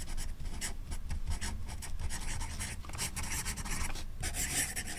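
Cold Steel Pocket Shark felt-tip marker scribbling on paper: a run of quick scratchy strokes, a little louder near the end.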